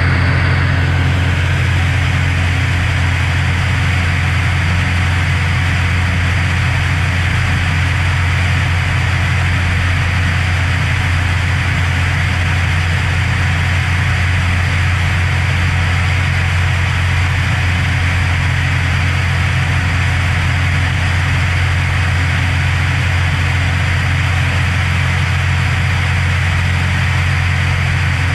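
Cessna Hawk XP II's propeller and six-cylinder Continental IO-360 engine droning steadily in flight, heard from outside the cabin with a steady rush of airflow over it.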